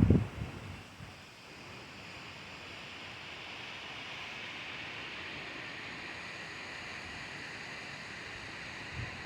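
Storm wind rushing through trees as a steady hiss that slowly builds. Wind buffeting the microphone fades out in the first half-second and starts again near the end.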